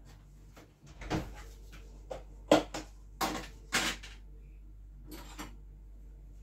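Kitchen handling noises: about six short knocks and clatters spread over the first five and a half seconds, like a cupboard or drawer being worked and items being picked up and set down.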